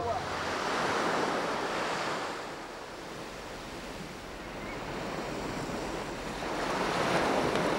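Sea waves washing onto a shallow beach, a steady surf hiss that swells, eases off in the middle and swells again near the end.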